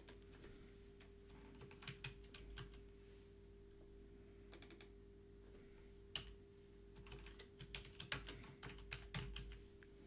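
Faint typing on a computer keyboard: scattered keystrokes that come faster near the end as a short name is typed in, over a faint steady hum.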